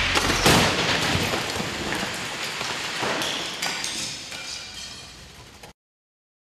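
Head-on crash between a 1998 and a 2015 Toyota Corolla: a single loud crunch of metal about half a second in. It is followed by a long fading clatter of scattering debris and glass, with a couple of smaller knocks, before the sound cuts off abruptly.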